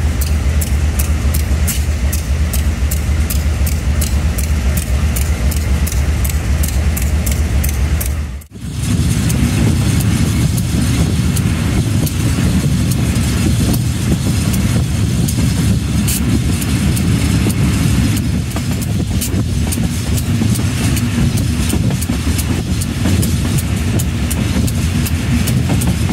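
Diesel locomotive heard from its cab: a steady low engine drone with a fast, even ticking over it. About eight seconds in the sound cuts off abruptly, and a noisier, steady rumble of the locomotive and its train running along the track takes over.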